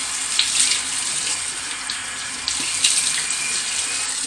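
Bathroom sink tap running hot water, with hands splashing it up onto the face in short splashes. The running water cuts off suddenly at the very end as the tap is shut.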